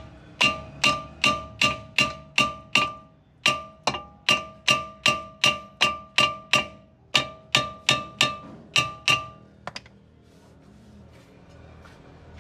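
Hammer blows on a car's cast-iron front brake disc, about two and a half a second in three runs, each strike making the disc ring with a clear metallic tone. The blows knock the rusted disc loose from its hub. The hammering stops about nine seconds in.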